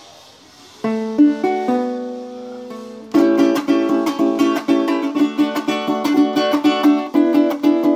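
Handmade cuatro with teak back and sides and a European spruce top being played. About a second in, a chord is struck and left to ring with a few more plucked notes. From about three seconds in, it is strummed briskly and rhythmically.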